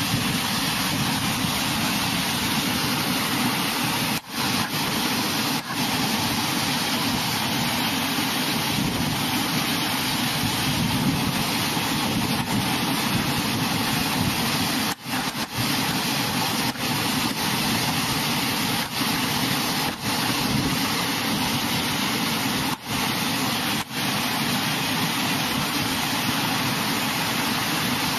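Floodwater rushing steadily down a concrete drainage channel, a continuous churning wash of water with a few brief dropouts.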